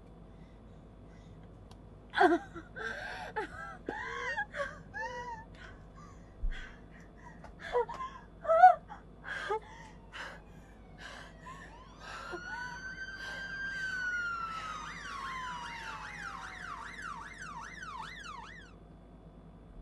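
A woman crying and gasping in short broken bursts. From about twelve seconds in, a police siren sounds: one long rising and falling wail, then a fast up-and-down yelp that stops shortly before the end.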